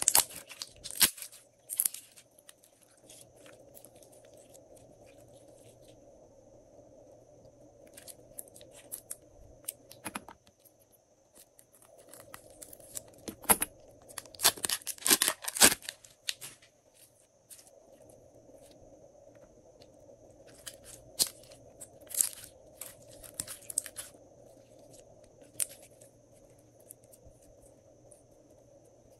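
Glossy slime being worked and mixed by hand: sticky crackling and clicking that come in clusters, densest in a burst about halfway through and again a little later.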